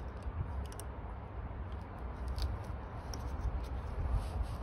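Faint metallic clicks and scrapes of snap-ring pliers and metal parts as a retaining ring is worked onto a clutch master cylinder's pushrod, over a steady low rumble.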